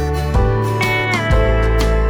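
Background instrumental music with held notes over a steady beat; one note slides down in pitch a little after a second in.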